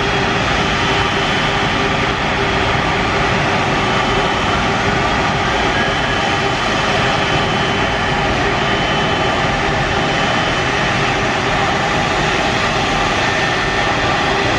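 Airbus A330 jet engines running at taxi power: a steady, loud rush with a constant whine over it, and a further tone coming in near the end.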